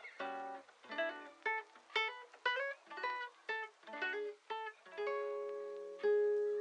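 Background music: a plucked guitar or ukulele line, notes about twice a second, moving into longer strummed chords about five seconds in.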